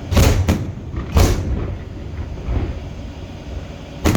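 Aerial fireworks shells bursting: a quick pair of bangs, another about a second in, a fainter one midway and another near the end, over a steady low rumble.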